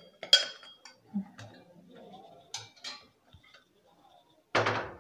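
A ladle clinking against an aluminium pressure cooker and a steel pot as soup is ladled out. A sharp ringing clink comes just after the start, then a few lighter clinks, and a louder half-second clatter near the end.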